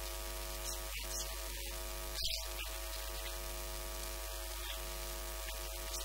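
Steady electrical hum with a stack of even tones and hiss, typical of a ground-loop or mains fault in the audio line; no voice comes through clearly.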